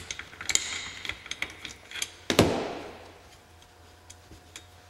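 A few light ratchet-wrench clicks on the locking nut of a Polaris primary clutch's weight pin, then a metal wrench set down on a wooden workbench with one sharp clank about two and a half seconds in that rings and fades.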